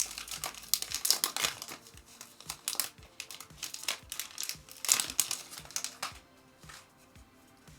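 Trading-card pack wrapper crinkling and tearing as the pack is ripped open, in repeated bursts that stop about six seconds in. Background music with a steady beat underneath.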